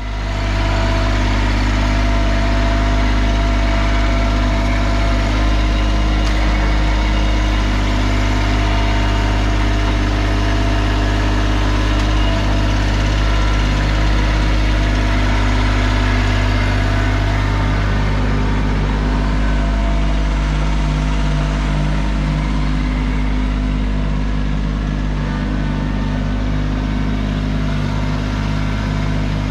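Kubota LX2610 compact tractor's three-cylinder diesel engine running steadily while the tractor works its loader and grapple. The engine's pitch shifts slightly about two-thirds of the way through.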